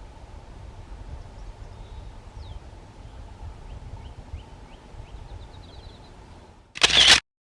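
Outdoor field ambience: a low wind rumble on the microphone with faint small-bird chirps and a short rapid trill. Near the end, a loud burst of noise lasting under half a second, then the sound cuts off abruptly.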